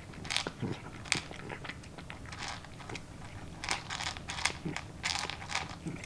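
A cat crunching dry kibble from a bowl, with irregular crisp crunches as it bites and chews.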